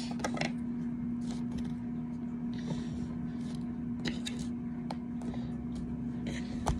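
Steady low hum, with scattered soft rustles and light taps and one sharper click near the end.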